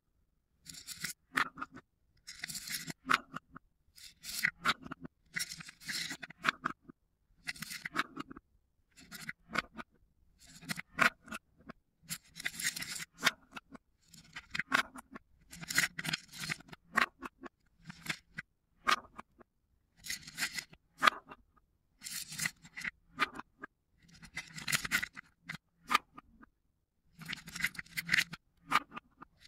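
Wooden balls being lifted out of wooden cups with a small wooden spoon and dropped into a wooden bowl of small stars. Each scoop gives a short burst of clacks and rattles, about one every second or two, with quiet pauses between.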